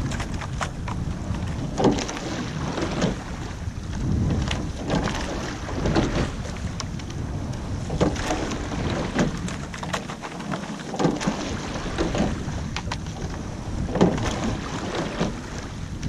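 Sculling boat under way: the oars give sharp knocks and splashes with each stroke, recurring every one to two seconds, over a steady rush of wind and water.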